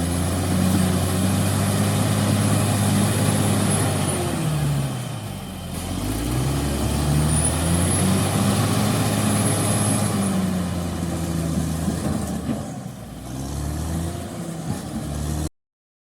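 CAT D6R XL bulldozer's diesel engine running loud and steady, its note dropping and picking back up twice, with a high whine over the steady stretches. The sound cuts off abruptly near the end.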